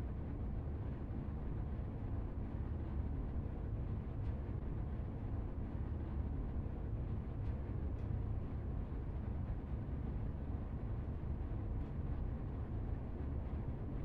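A steady low rumbling drone, its weight in the deep bass, with a few faint high ticks about four, eight and twelve seconds in.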